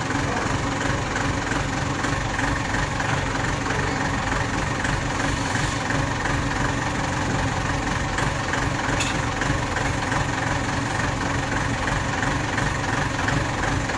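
Forklift engine idling steadily with a regular low pulse.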